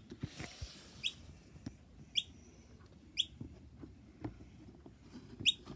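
Baby noisy miner giving short, high chirps, four in all, spaced roughly a second apart. A brief rustle comes just before the first chirp.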